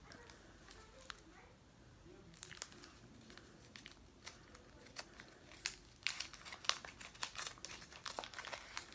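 Candy wrapper crinkling as it is unwrapped by hand. Sparse crackles at first, growing denser and louder over the last three seconds.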